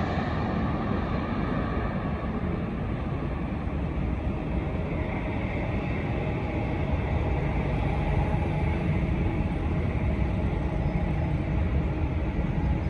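Jet airliner engine noise at an airport: a steady low rumble and roar, with a faint engine whine coming in during the second half.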